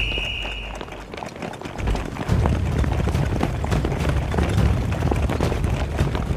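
Many hurried footsteps of a crowd running on pavement, starting about two seconds in, over a steady low rumble.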